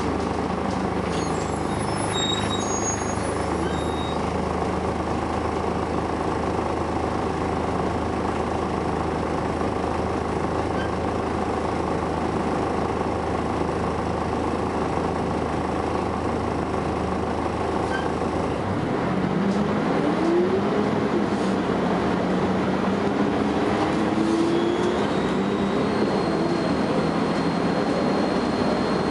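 Volvo B10BLE bus's diesel engine running steadily, then picking up about two-thirds through, its note climbing three times in a row. A thin, strange high-pitched whine sounds briefly near the start and again near the end.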